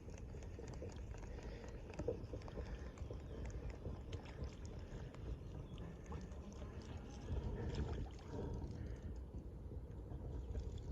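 Faint low rumble, like wind on the microphone, with scattered light knocks and handling noises.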